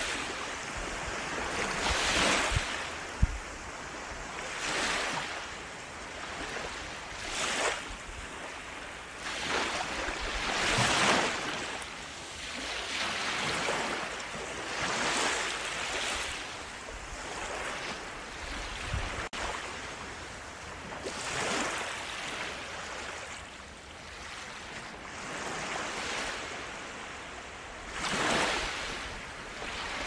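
Small waves breaking and washing up onto a sandy beach, the surf swelling and fading every few seconds.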